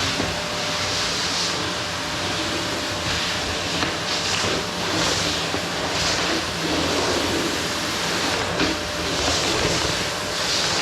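Vacuum cleaner running steadily with a faint motor hum, its hiss swelling and easing every second or so as the head is pushed back and forth across a wooden floor.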